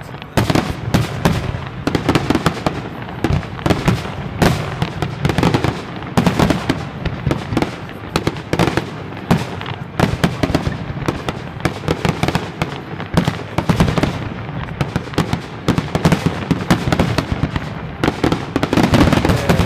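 Aerial fireworks display going off continuously: a dense, irregular barrage of bangs and crackling shell bursts.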